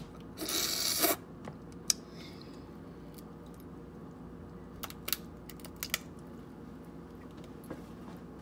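A brief tearing rustle about half a second in, then a few scattered sharp clicks and cracks of king crab leg shells being handled.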